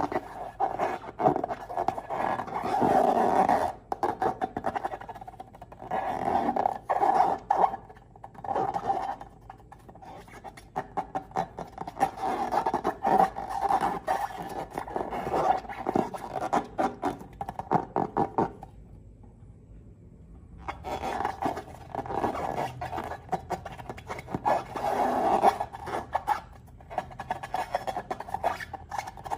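Slime being squished and worked by hand, giving runs of rapid sticky clicks and crackles, with a break of about two seconds about two-thirds of the way through.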